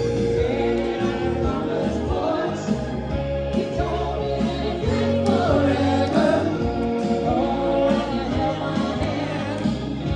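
Live rock cover band playing a song with singing, electric bass and drums in the mix.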